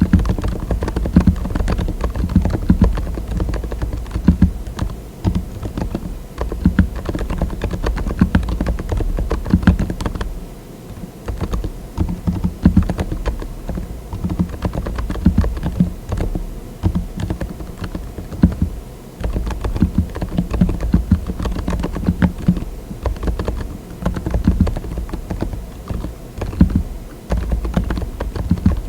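Mechanical keyboard fitted with TTC Silent "Bluish White" tactile switches being typed on continuously: a fast, dense run of soft, dull keystrokes with a few short pauses.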